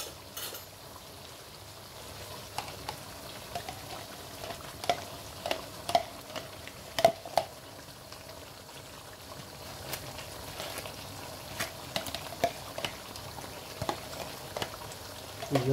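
Chicken karahi frying in its sauce in a wok, a steady sizzle, with scattered clicks and taps as yogurt is spooned into the pan, the sharpest about halfway through.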